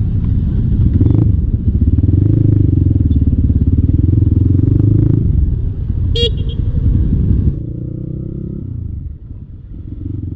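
Motorcycle engine running on the road, its pitch rising and then holding; about six seconds in a short horn beep sounds, and the engine sound drops off about a second later.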